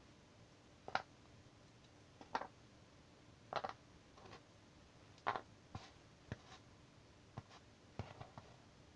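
Cardboard jigsaw puzzle pieces being picked up and set down on a puzzle board: faint, irregular clicks and light taps, about a dozen in all. The sharpest come about a second in and just past five seconds.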